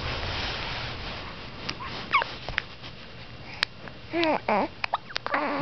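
Baby hiccuping repeatedly in short, sharp hiccups, with a brief whimper about four seconds in.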